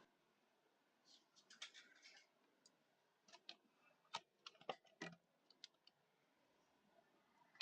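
Faint, irregular clicks and light taps, about a dozen over several seconds, against near silence.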